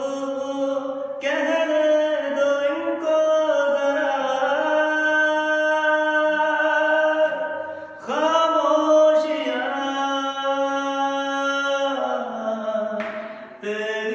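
A man singing unaccompanied, holding long, drawn-out notes without words, with a brief break for breath about eight seconds in and a falling phrase near the end.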